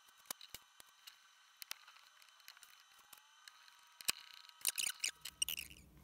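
Faint scattered clicks and light taps of small metal parts being handled at a bench vise, growing busier with a low hum in the last second.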